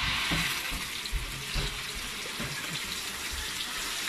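Blended dried-chilli paste sizzling as it is poured into hot oil and frying spices in a wok: a steady hiss that starts suddenly, with a few dull knocks underneath.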